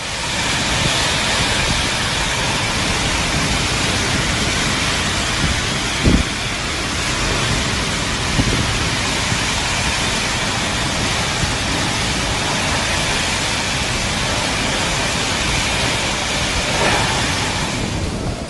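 Heavy rain in a windstorm: a loud, steady rush of rain and gusting wind, with a couple of brief thuds about six and eight seconds in.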